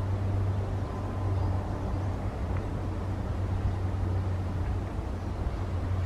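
Steady low rumble of distant road traffic, with an even hum underneath.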